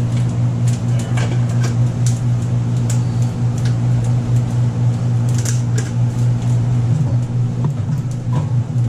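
Steady low mechanical hum from the food truck's kitchen equipment, unchanging throughout, with scattered light clicks and taps of containers being handled.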